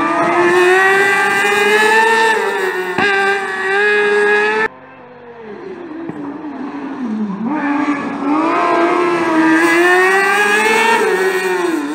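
Rally cars' engines at full throttle. One climbs steadily in pitch until it cuts off suddenly about four and a half seconds in. After a quieter gap, another builds up from about seven seconds, revving high and shifting gear as it approaches and passes.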